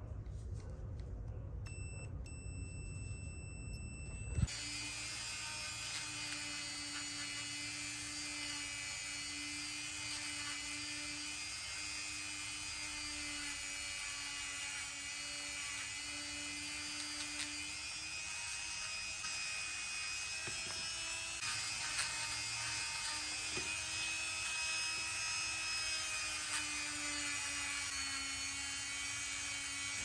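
Small pen-style rotary tool running with a steady whine, its bit grinding against the metal housing of a small brushed DC motor. The whine starts abruptly about four seconds in.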